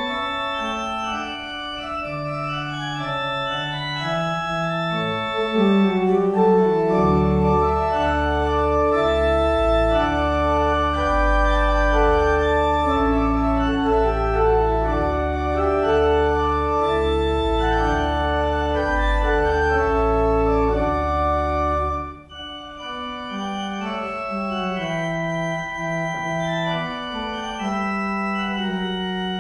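Church organ playing the closing voluntary as the service ends: held chords moving step by step. Deep pedal bass notes enter about seven seconds in and drop out about three-quarters of the way through, where the sound briefly dips and then carries on more lightly.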